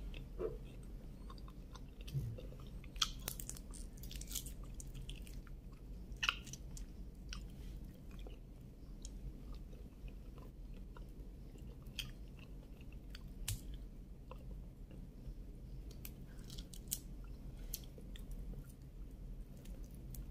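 A person chewing and biting into cooked shrimp close to the microphone, with scattered crisp clicks and crunches of the shells.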